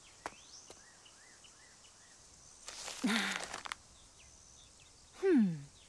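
Cartoon outdoor ambience of small chirps and clicks, with a short rushing whoosh about three seconds in and a tone that slides steeply down in pitch near the end.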